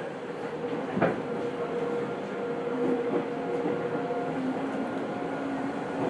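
Tokyo Metro 10000 series train heard from inside the car: a steady hum and rumble with a few held tones, and one sharp knock about a second in.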